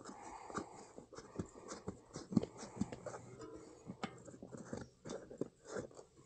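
Mountain e-bike tyre bead being worked off the rear rim by hand: irregular rubber scrapes, squeaks and sharp clicks.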